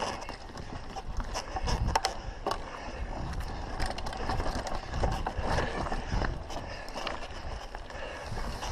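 Mountain bike rolling fast down a rough dirt singletrack: tyres running over dirt and stones, with the bike rattling and clicking over the bumps throughout.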